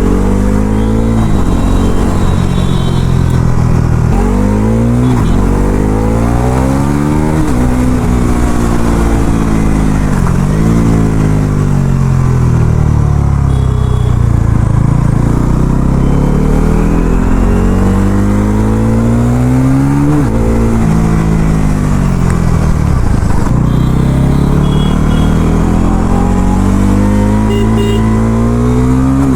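Bajaj Pulsar NS400Z's single-cylinder engine through its stock exhaust, revving up hard under acceleration. Its pitch climbs and then drops abruptly at each quick upshift, several times in a row. Twice the revs fall away more slowly as the bike eases off, before it pulls hard again near the end.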